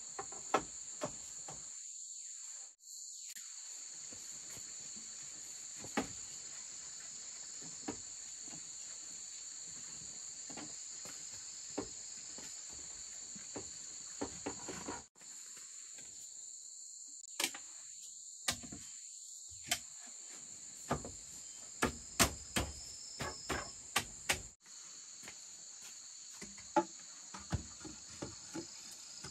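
Steady high-pitched chorus of insects, with scattered sharp knocks and taps that come thickest in the second half. The sound cuts out briefly about three times.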